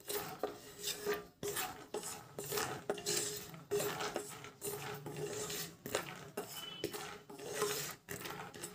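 Wooden spatula stirring peanuts as they roast in hot ghee in a nonstick kadhai: irregular scraping strokes against the pan, with the peanuts clicking and rattling as they roll.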